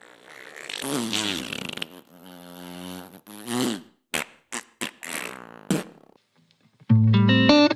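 A string of comic fart sounds: several long ones that waver and bend in pitch, and a few short pops. Near the end a loud run of stepping musical notes begins.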